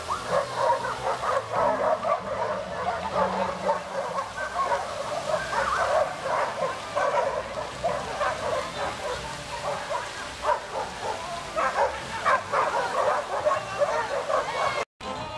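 Steady splashing of a large fountain's water jets, with a continuous string of short, rapid yaps from a dog over it. The sound drops out for a moment near the end.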